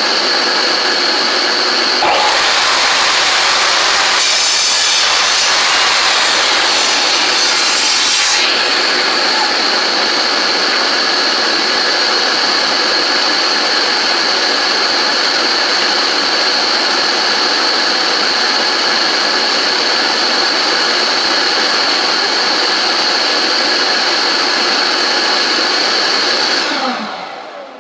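Ridgid table saw running with a steady high whine, cutting through a cedar board for about six seconds a couple of seconds in. Near the end the saw is switched off and its motor winds down.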